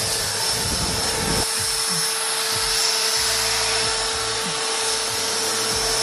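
Corded electric leaf blower running steadily, blowing snow off a driveway: a constant motor whine over a rush of air.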